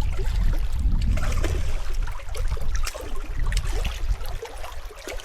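Water splashing and trickling beside a small fishing boat, over a low rumble that fades after about two seconds.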